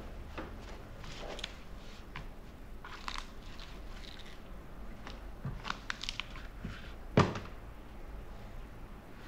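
A Viking Bags Voyager XL sissy bar bag being handled on a wooden table: scattered rustles of its fabric and clicks of straps and plastic buckles, with one louder thump about seven seconds in.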